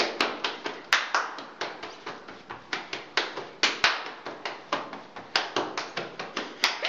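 A quick, uneven run of hand claps, about five to seven a second, with no talking over it.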